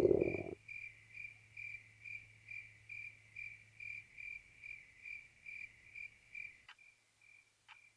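Cricket chirping steadily at about two chirps a second, the stock 'awkward silence' comedy sound effect. A loud, low blare cuts off about half a second in.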